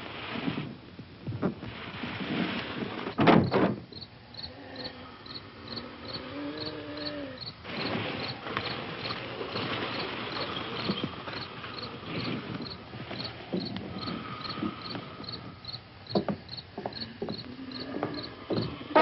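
Crickets chirping in a steady rhythm, about two short high chirps a second, under scuffling noise. Knocks and one loud thump come in the first few seconds.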